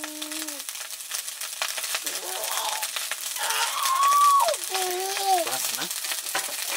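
Rapid light clicking and rattling throughout, with a high voice making drawn-out gliding calls, some held and then dropping, from about two seconds in.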